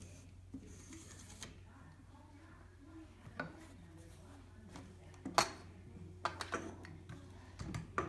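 Scattered metal clicks and knocks as a walker's leg tubes and a wheel kit's axle and sleeve tubes are handled and fitted together, the loudest knock about five and a half seconds in, with a cluster of lighter clacks after it, over a low steady hum.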